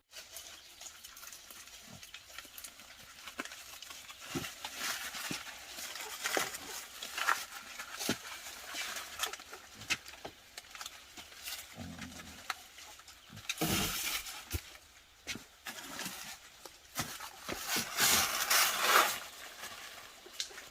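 Wild boars or pigs rooting and rustling, with many small clicks and a short low grunt about twelve seconds in, and louder bursts of rustling near the middle and near the end.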